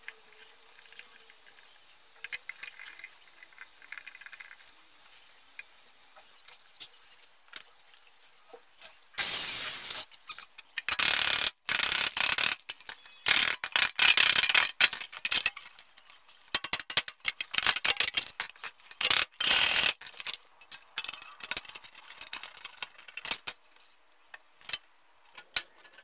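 Thin metal sheet being worked by hand: after several quiet seconds with faint clicks, a long run of loud metallic clattering and crunching bursts in quick clusters as the sheet is hammered over a steel bar, dying down to a few smaller clanks near the end.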